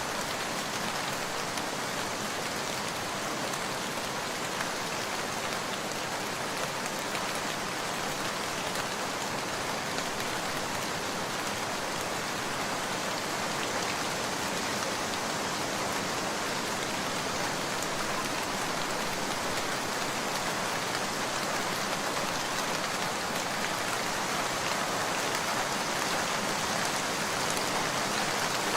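Steady rain falling, an even hiss of many drops that holds level throughout.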